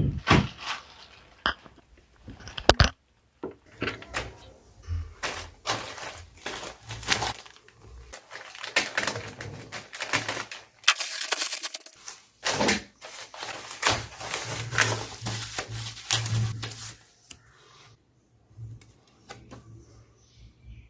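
A delivery package being opened by hand: bursts of rustling and tearing packaging with scattered sharp clicks and knocks, dying down about three seconds before the end.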